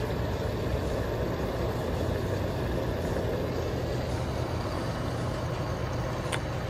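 Steady low hum of an idling vehicle engine at a gas pump while fuel is being pumped, with a light click near the end.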